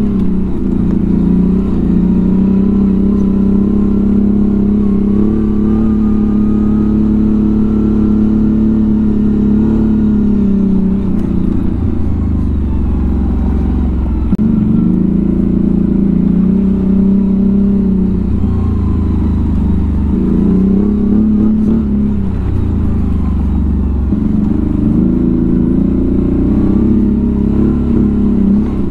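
ATV engine running under changing throttle. Its pitch holds steady for about ten seconds, then drops away and picks up again several times.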